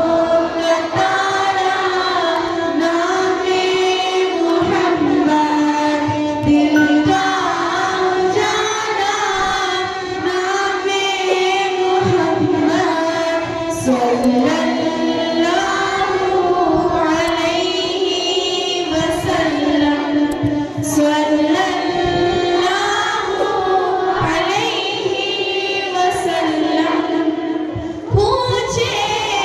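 A girl singing a naat, an Islamic devotional song, in long held notes that glide between pitches.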